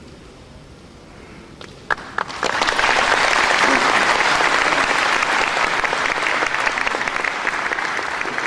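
Audience applauding: a few lone claps about two seconds in, then full applause that slowly dies away near the end.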